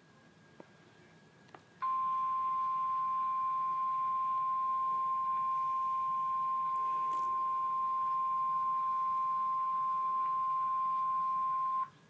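NOAA Weather Radio warning alarm tone, the 1050 Hz single steady beep, playing through a computer's speakers. It starts abruptly about two seconds in and holds for about ten seconds before cutting off. It signals that an emergency warning message follows, here a severe thunderstorm warning.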